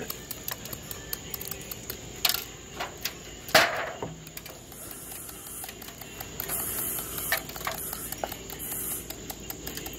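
Ice pick chipping a hand-held block of clear ice: a run of quick, irregular sharp taps and cracks, with a louder crack about three and a half seconds in.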